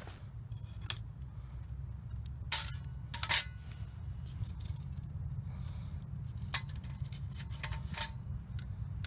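Camp cooking gear being handled: a few separate light clinks and clicks, the loudest about three and a half seconds in, over a steady low rumble.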